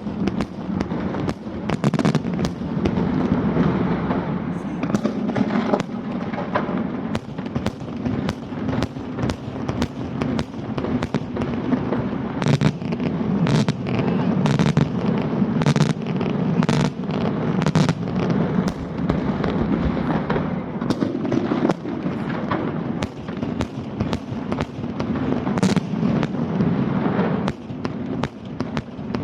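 Italian fireworks finale barrage (scarica): a rapid, unbroken run of shells and salutes bursting, with sharp cracks several times a second over a continuous rumble.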